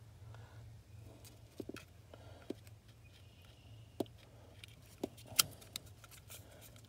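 Small plastic clicks and taps as a wiring connector is handled and pushed onto a new brake lamp switch under a 2006 Dodge Durango's dash, with one sharper click a little past five seconds in.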